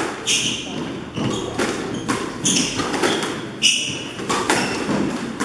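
Squash rally: the ball struck by rackets and smacking off the walls in a string of sharp hits, roughly one every half second to a second, with shoes squeaking on the wooden court floor between the shots.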